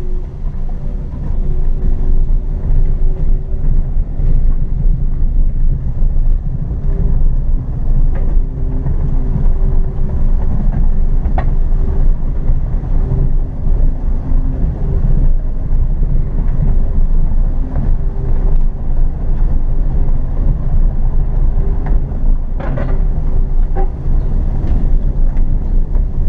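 Renault Zoe electric car on the move, with no engine note: a loud, steady low rumble of road and wind noise, with a faint hum and a few brief sharp knocks.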